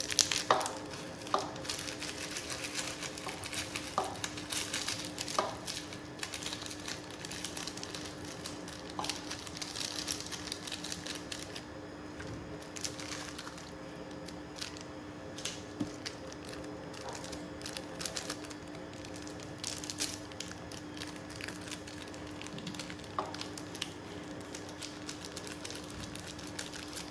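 Plastic instant-noodle seasoning sachets crinkling as they are handled, opened and squeezed out, with a few sharp clicks in the first few seconds. A faint steady hum runs underneath.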